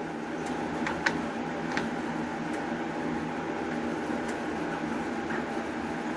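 A steady background hum with a few light clicks about one and two seconds in, the sound of small printer parts and screws being handled.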